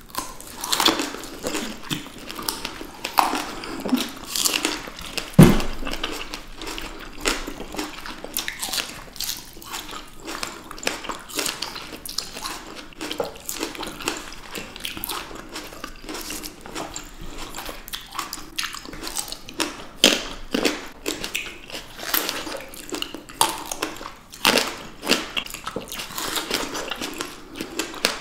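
Close-miked biting and wet chewing of fresh strawberries and white grapes: many small juicy clicks, squishes and crunches in an irregular run, with one louder sharp click about five and a half seconds in.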